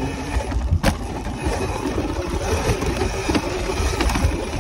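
Wind buffeting the microphone and tyres rolling on dirt as a bike is ridden fast along a dirt jump track, making a steady uneven rumble, with a sharp knock about a second in.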